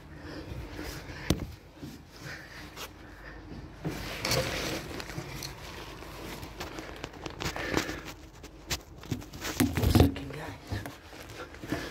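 A person moving about on scaffolding: footsteps, clothing rustle and handling noise, with scattered knocks. The sharpest knock comes about a second in, and the loudest thump comes near the end.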